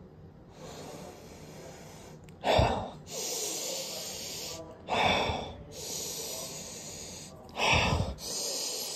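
A person sniffing deeply and loudly through the nose, close to the microphone: long drawn sniffs broken by three short, louder breaths out, about two and a half seconds apart.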